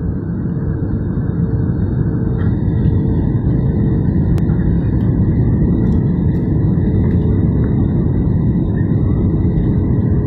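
Jet airliner cabin noise heard from a window seat in flight: the steady low rumble of the engines and the airflow along the fuselage, with a faint steady hum.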